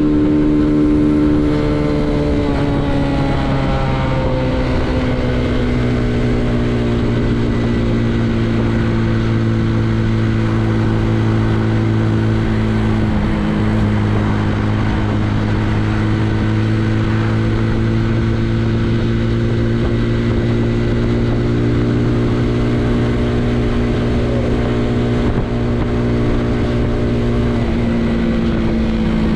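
Benelli Leoncino 125's single-cylinder engine running under way at steady revs. Its pitch falls a second or two in and then holds, with a brief dip about halfway through and a slow rise near the end.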